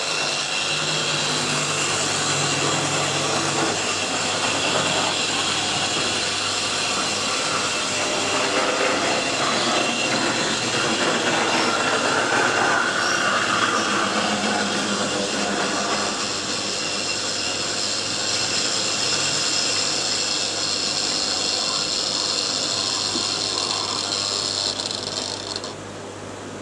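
Hornby Dublo 0-6-0 R1 tank locomotive running on OO gauge track with a rake of coaches: a steady whirr of its electric motor and gears with the clatter of wheels on the rails, over a low steady hum. The running noise drops away shortly before the end.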